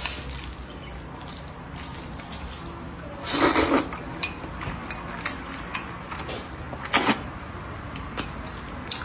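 Person slurping up a mouthful of Nanchang rice noodles in one loud, wet suck about three seconds in, then a shorter wet slurp near seven seconds. Small mouth clicks from chewing come in between.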